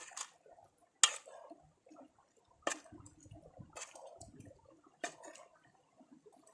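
Big ladle stirring boiled tapioca into thick beef masala in a large pot. A sharp scrape against the pot comes about once a second, with soft wet squelching of the mash between strokes.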